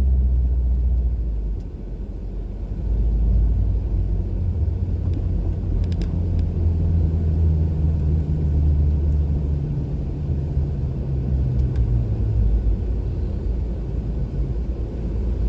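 Lifted Honda CR-V driving through deep snow, its engine and drivetrain giving a steady low rumble whose pitch shifts with the throttle. The sound dips briefly about two seconds in, then holds.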